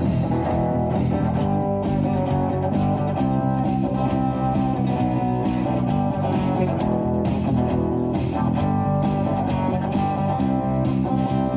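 Guitar-led instrumental break of a rock song, with guitars and bass playing steadily between sung verses.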